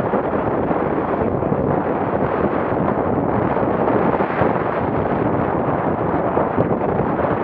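Strong gusty wind buffeting the microphone, over the rush and splash of a small motorboat's hull driving through choppy water and spray.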